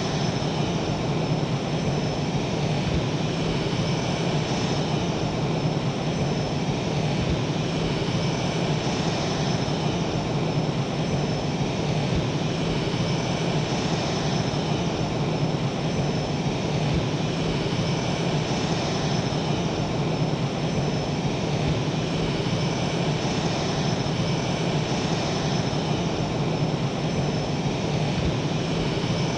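Blue Angels F/A-18 Hornet jet engines running steadily at ground idle, a constant high whine over a low hum.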